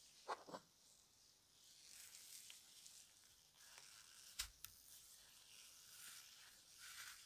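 Faint handling noise of gloved hands turning old brass opera glasses: soft rubbing and rustling of nitrile gloves against the cracked leather grip and metal, with two small clicks near the start and two sharper clicks a little past halfway.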